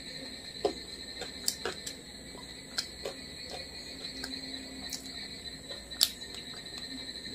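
Fingers mixing cooked rice on a plate, giving scattered soft clicks and squishes close to the mic, the sharpest about six seconds in, over a steady high-pitched whine.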